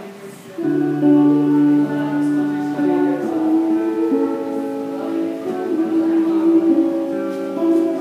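A woman singing into a handheld microphone, with an acoustic guitar accompanying her, in long held notes. The music dips briefly at the start and comes back in about half a second in.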